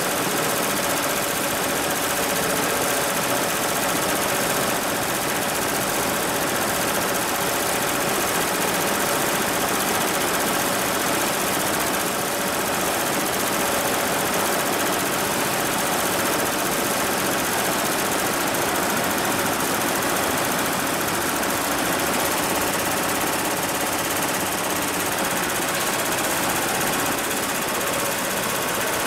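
HIGHTEX 7201 single-head, 12-needle commercial embroidery machine stitching at speed: a fast, even mechanical clatter of the needle going up and down, with a faint steady tone under it.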